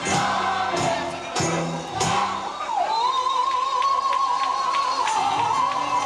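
Gospel music: bass notes and drum beats, then from about halfway through a singer holds one long wavering note over the accompaniment.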